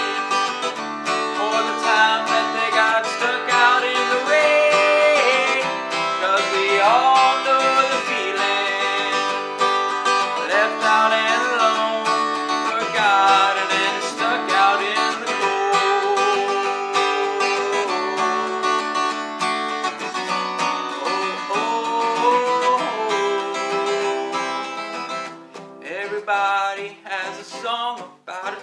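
Takamine acoustic guitar strummed in a steady rhythm, playing chords with melody notes on top; the playing grows quieter and sparser over the last few seconds.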